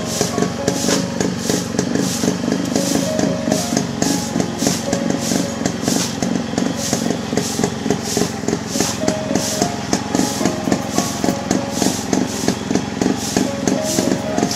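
Background music with a steady beat: crisp percussion strokes about two and a half times a second over a full low backing, with short recurring melodic notes.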